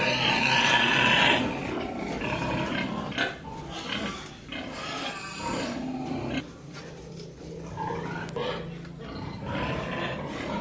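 Piglets squealing and grunting, with a loud high squeal in the first second and a half, then quieter, lower grunts.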